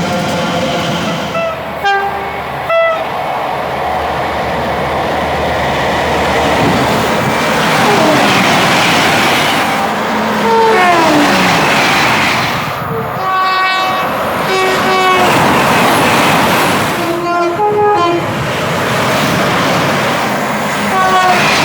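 Train horns sounding repeatedly over the steady noise of a train running past at speed. There are two short blasts about two seconds in and a horn whose pitch falls as it goes by around the middle, then several more short blasts in the second half.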